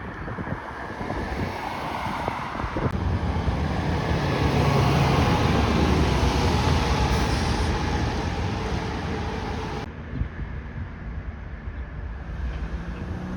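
A heavy road vehicle passing: a rumble that builds for about five seconds, then eases off, broken by an abrupt cut about ten seconds in.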